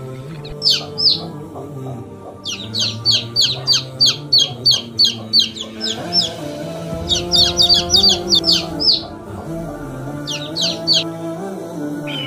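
Young chicks peeping: runs of short, high-pitched calls, about three a second, over background music.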